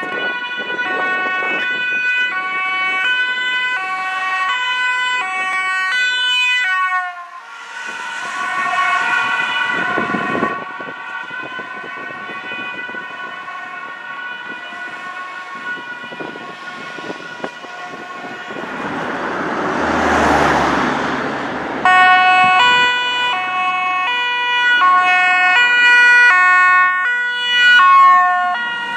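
Sirens of Dutch Mercedes-Benz ambulances on an urgent run, mostly the two-tone horn alternating between a high and a low pitch, with a steadier held tone in the middle stretch. About twenty seconds in, a swelling rush of engine and road noise rises over the siren as an ambulance passes close.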